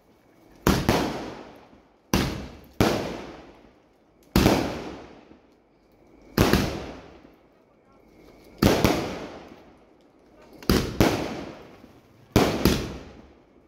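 Fireworks going off one after another: about eight sharp bangs roughly two seconds apart, some coming in quick pairs, each dying away over a second or more.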